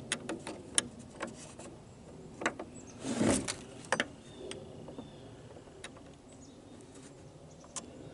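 Scattered light clicks and knocks from a cordless chainsaw's bar and chain being handled while the chain tension is set, with a short scraping rub a little past three seconds in.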